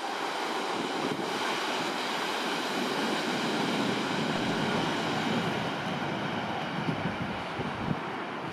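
Berlin S-Bahn class 481 electric multiple unit passing close by and running away down the track: rolling wheel-on-rail noise with a steady high whine, loudest about halfway through and fading toward the end.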